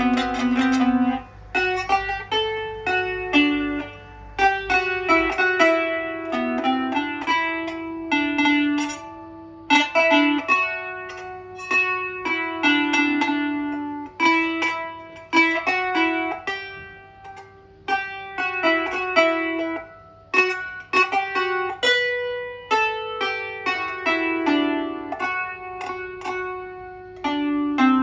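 Kanun (Turkish plucked zither) played with finger picks on both index fingers: quick runs of plucked, ringing notes forming a melody, in phrases separated by brief pauses.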